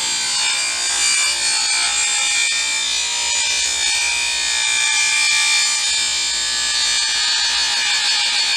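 Table saw running with a steady, many-toned high whine as its blade cuts a taper along a board held in a tapering jig.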